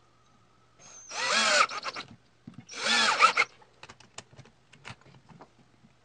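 Power drill run in two short bursts, about a second and three seconds in, driving into a wooden block, followed by a few light clicks and taps of handling.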